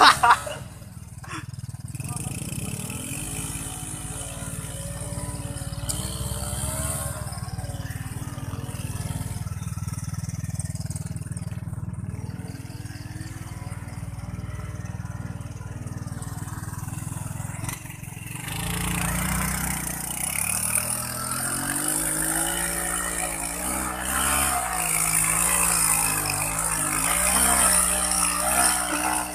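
Small motorcycle and scooter engines revving up and down as the bikes labour through thick mud, the pitch rising and falling. About two-thirds of the way in, it gets louder, with a hiss added.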